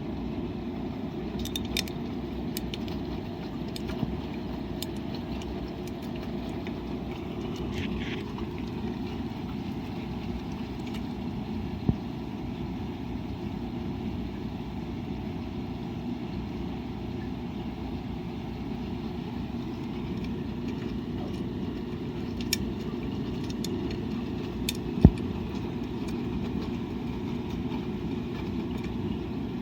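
Washing machine running a laundry load: a steady low churning hum, with occasional sharp clicks and one louder knock about 25 seconds in.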